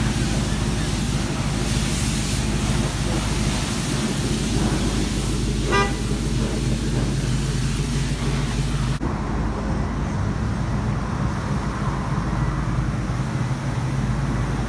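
Pickup truck engine idling with a steady low rumble, under the hiss of a car-wash pressure-washer spray that cuts off about nine seconds in. A short horn toot sounds about six seconds in.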